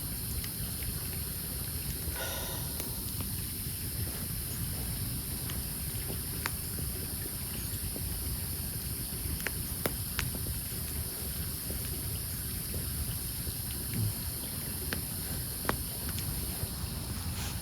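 Wood campfire burning, with scattered sharp crackles and pops over a steady high insect drone and a low rumble. A short pitched call sounds about two seconds in.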